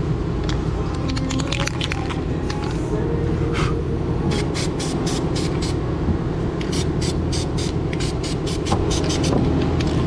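Aerosol battery-terminal protector sprayed in quick short bursts, a run of about six sharp hisses and then about a dozen more, over a steady low hum.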